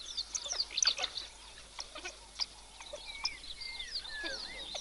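African wild dogs twittering: many quick, high chirps, with a few longer wavering whistles in the middle.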